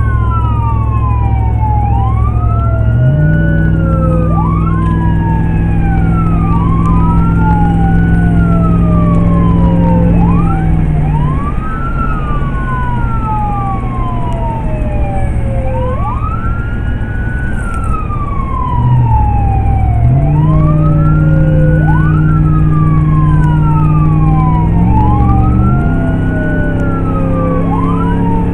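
Emergency-vehicle siren wailing in repeated sweeps, each rising quickly and falling slowly, with two sweeps overlapping out of step, heard from inside the responding vehicle. Under it the vehicle's engine climbs in pitch about three seconds in and again about twenty seconds in, easing off around ten seconds in.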